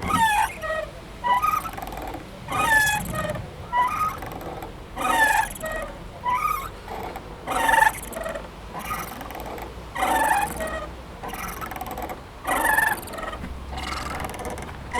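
A playground swing squeaking as it swings back and forth: a run of short, pitch-bending squeaks coming in loose, repeating pairs, one or two a second.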